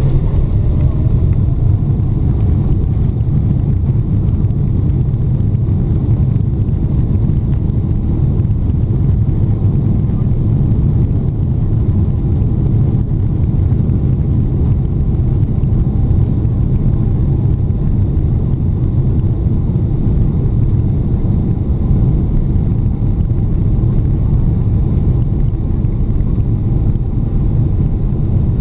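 Steady, loud low rumble of Boeing 777-300ER cabin noise, engines and airflow heard from inside the cabin.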